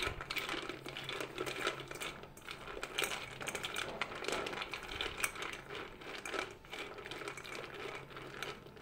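Damp raw shelled peanuts rattling and clicking against a stainless steel colander as a hand stirs them round, a rapid, irregular clatter.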